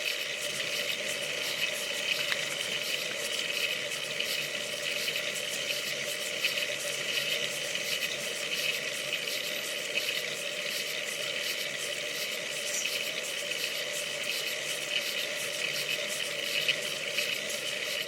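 Steady crackling rush of wind and road noise on a bicycle-mounted camera's microphone while riding, even throughout with no distinct events.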